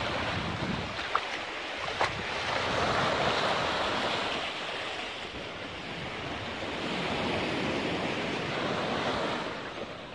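Small sea waves breaking over rocks and washing up a sand beach, a steady wash of surf that swells and eases. Two short knocks stand out about one and two seconds in.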